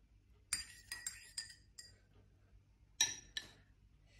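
Metal spoon clinking against a glass jar and ceramic mugs: a quick run of ringing clinks about half a second in, then two sharper taps about three seconds in.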